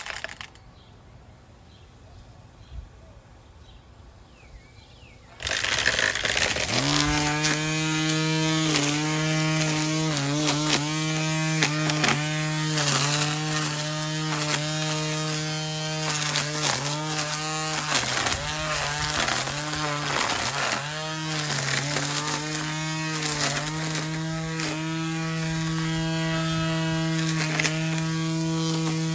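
Hart 40V cordless electric string trimmer switched on about five seconds in, then running with a steady high whine. Its pitch dips again and again as the spinning line bogs down cutting.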